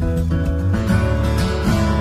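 Background music: solo acoustic guitar, plucked and strummed.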